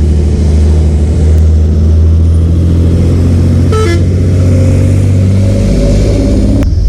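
Motorcycle engine running steadily under way, its note dropping lower about five and a half seconds in. A short higher-pitched sound cuts in briefly about four seconds in.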